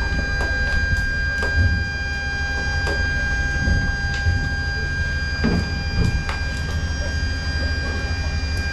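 Steady low rumble and a constant high-pitched whine from running machinery, with scattered light knocks and clicks.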